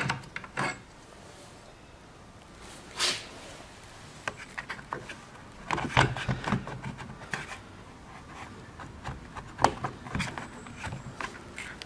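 Hands working on a car door's exterior handle mechanism: irregular plastic clicks, taps and rubbing as parts are handled and pulled, busiest around six seconds in.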